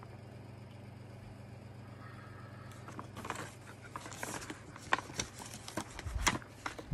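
A folded paper quick-start guide being handled and refolded, with crinkling and sharp paper crackles that start about three seconds in and grow louder toward the end. A faint low hum sits underneath.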